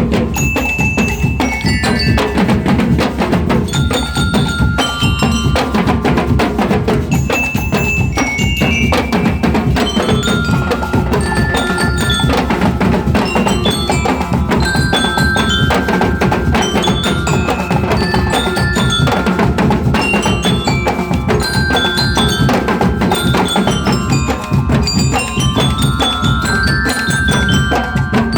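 Marching band bell lyres (liras) ringing out a melody in quick struck notes, over a steady beat of drums.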